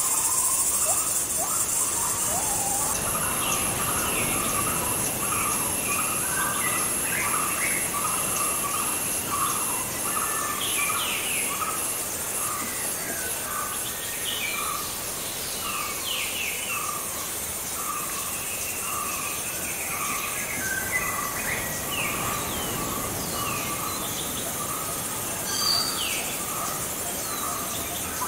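Tropical forest ambience: birds calling with quick falling chirps, one short call repeating at an even pace, over a high steady insect buzz that fades partway through and a low noisy background.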